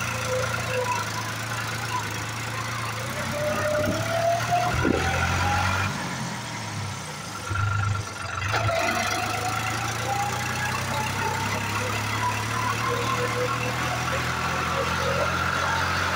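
New Holland tractor's diesel engine running as it drives, heard from the driver's seat. A whine rises in pitch twice as it picks up speed, and the engine note dips briefly a little past the middle.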